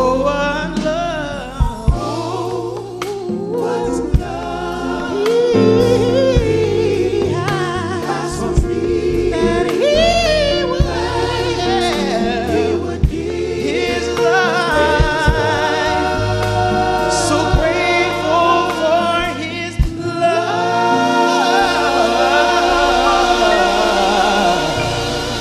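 Gospel vocal group singing the closing phrases of a medley in close harmony over an accompaniment with low sustained notes and occasional drum hits, settling into a long held chord near the end.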